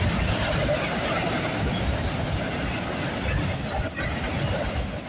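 Freight train cars rolling past at speed: a steady rumble and clatter of steel wheels on the rails.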